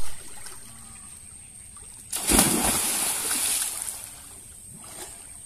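A thrown cast net hits the river about two seconds in: a sudden splash and spatter from its weighted rim striking the water, fading over about two seconds. A brief thump comes at the very start.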